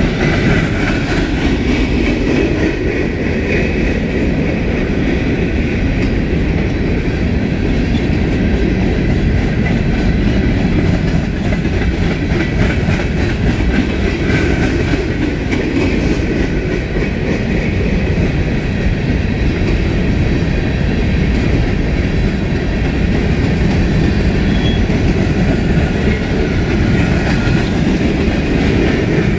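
Freight cars of a passing freight train rolling by close: a steady loud rumble of steel wheels on the rails with clickety-clack from the rail joints. Thin, high wheel squeals come and go.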